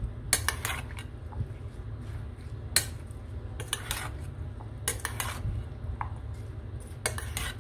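Metal spoon clinking and scraping against a stainless steel bowl while tossing chopped salad, in irregular clusters of sharp clinks.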